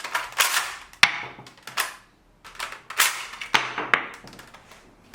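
3D-printed spring-powered toy M1 Garand with blowback action being fired and cycled: a string of about six sharp snaps and clacks.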